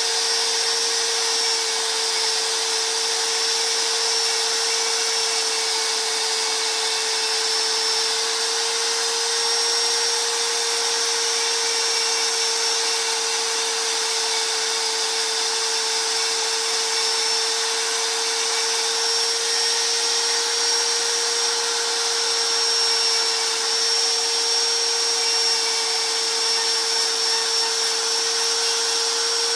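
Electric power sander running continuously at a steady speed: a constant motor tone over a hiss, with no change in pitch or load.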